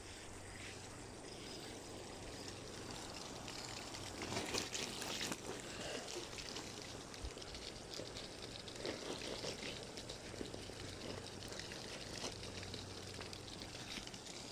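Water running and trickling onto a wet plastic Slip 'N Slide mat, splashing louder for a second or so about four seconds in.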